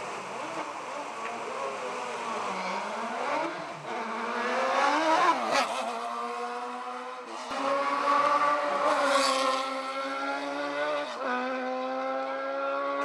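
Sports prototype race car accelerating hard, its engine revving higher and higher and rising in pitch to a loud pass close by about five seconds in. The engine then pulls steadily at high revs, rising slowly, with one gear change dropping the pitch near the end.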